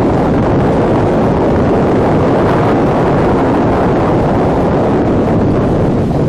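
Storm-force typhoon wind blowing hard and steadily, a loud rushing roar with heavy wind buffeting on the microphone.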